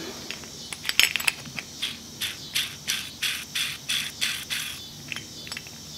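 Light metallic clicking, about four clicks a second, as the crankshaft of a Stihl leaf-blower two-stroke engine is turned and rocked by hand in its crankcase to check the bearings, one of which is a little worn. The clicking stops about four and a half seconds in.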